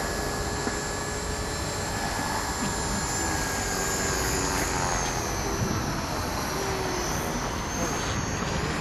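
450SE V2 electric RC helicopter in flight: a steady high whine from its brushless motor and spinning rotor blades, the pitch sagging slightly and recovering about two-thirds of the way through as it manoeuvres.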